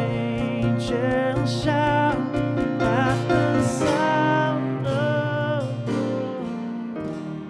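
Live band music: a song's instrumental passage with guitar and keyboard over a steady beat. The beat drops out near the end, leaving held notes.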